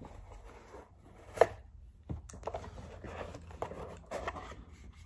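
Hands handling and opening a small box: rustling, scraping and light taps, with one sharp click about a second and a half in.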